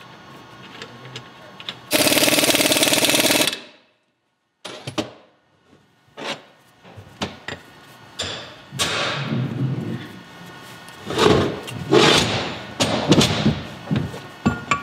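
Cordless impact wrench hammering a Toyota differential third member's pinion nut tight in one burst of about a second and a half, crushing the pinion bearings together to gain preload. Metal clinks of tools and parts follow, then a run of sharp hammer knocks near the end.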